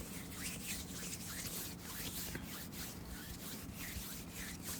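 Hands rubbing close to the microphone in soft, repeated strokes, a steady airy swishing with no whispering.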